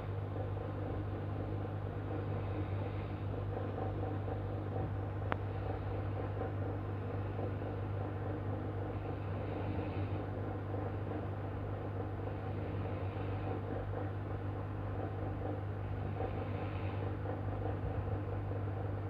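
A man snoring in his sleep, a breath coming every three to four seconds, over a steady low hum.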